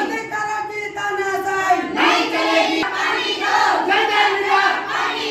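A crowd of protesters chanting slogans together in short, repeated phrases.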